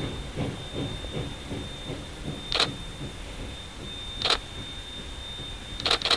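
Distant steam locomotive at rest, a low uneven rumble with a thin steady high tone, broken by sharp clicks: one about two and a half seconds in, another about four seconds in, and a quick run of three near the end.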